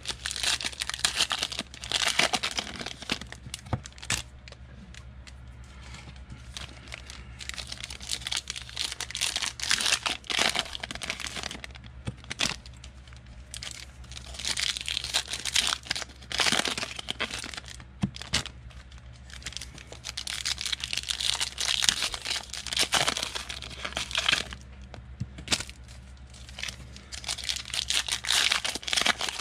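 Foil trading-card pack wrappers being torn open and crinkled by hand in repeated bursts, with cards shuffled and clicked between them, over a low steady hum.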